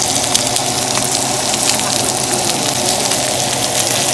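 T-bone steak sizzling in a hot pan alongside onion slices, a steady crackle of spitting fat and juices.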